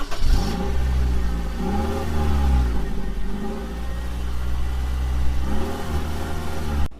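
Car engine running and being revved three times, each rev rising and falling in pitch, then cutting off abruptly near the end.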